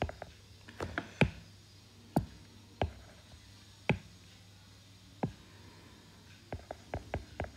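Stylus tip tapping and clicking on a tablet screen during handwriting: a dozen or so sharp, irregular taps, with a quicker run of them near the end.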